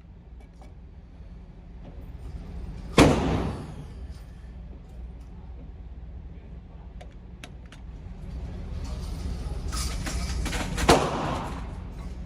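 Two pistol shots at an indoor range, about eight seconds apart, each sharp with a short echo off the range walls.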